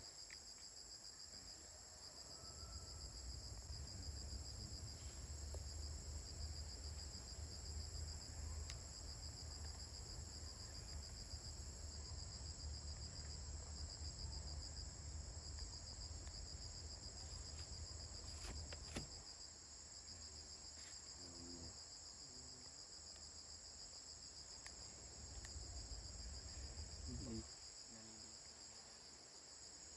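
Steady insect chorus, a high, finely pulsing chirring like crickets, over a low rumble that cuts off near the end, with a couple of sharp clicks past the halfway point.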